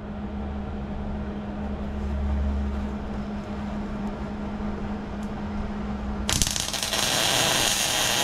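A steady low hum, then about six seconds in a MIG welder's arc strikes and runs with an even, loud crackling hiss as a rebar brace is tack-welded to a steel wheel rim.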